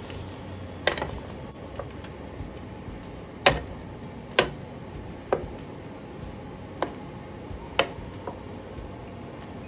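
Wooden spatula stirring thick cream sauce in a pan, knocking against the pan about eight times at uneven intervals.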